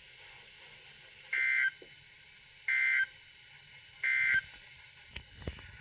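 Emergency Alert System SAME digital data bursts: three short, harsh two-tone warbles, each about a third of a second long and evenly spaced, the end-of-message code that closes the alert. A couple of sharp clicks follow near the end.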